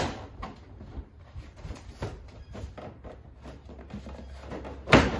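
Two sharp knocks, one at the start and a louder one near the end, with lighter clicks and rattles between them: the plastic front bumper cover of a Lexus GX470 being worked loose from its clips and pulled off.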